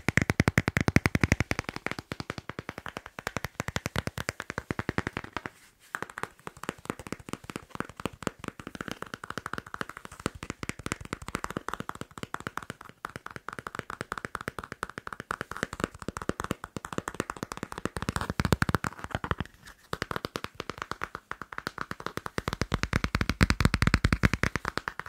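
Fingers tapping and scratching fast on a passport, a dense run of many small clicks a second. It breaks off briefly about six and twenty seconds in, and a few heavier, deeper taps come around eighteen and twenty-three seconds in.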